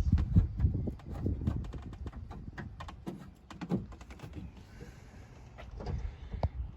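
Irregular light clicks and taps over a low rumble, busier in the first second or so, with a few sharper clicks near the end.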